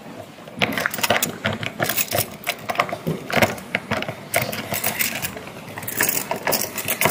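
Irregular metallic clicks and rattles: keys being handled at a holding-cell gate and its lock.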